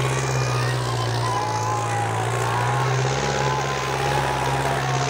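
New Holland tractor's diesel engine working hard under heavy load as it drags a disc harrow, a steady low drone holding one pitch.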